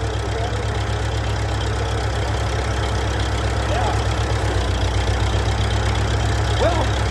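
Engine idling steadily, running on a gravity-fed fuel supply in place of a fuel pump.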